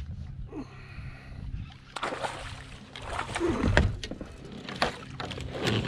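A hooked bass splashing and thrashing in the water beside a kayak as it is reeled in, with a run of sharp splashes from about two seconds in.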